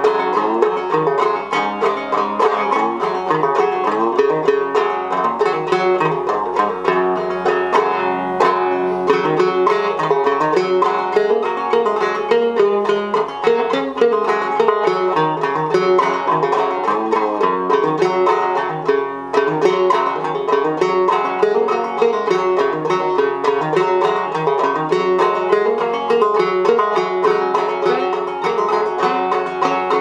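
Handmade ceramic gourd-style banjo, with a 14-inch body and an 8.5-inch head tuned well down, being played through a tune. It gives a steady stream of plucked notes with a deep, resonant tone.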